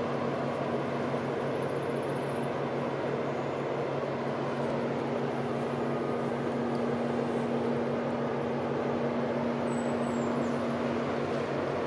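Steady low drone of a passing container ship's engines, with a regular throbbing pulse under it.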